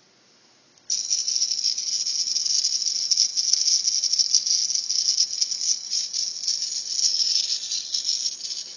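A greeting card's sound chip playing through its small piezo speaker: a thin, high-pitched, buzzy rattling sound that switches on about a second in and carries on.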